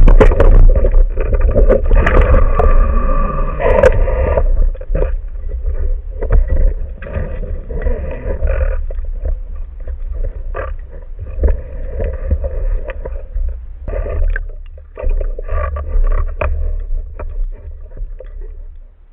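Water noise on a spearfishing diver's camera: rushing and gurgling water against the housing with a heavy low rumble, broken by scattered clicks and knocks, fading near the end.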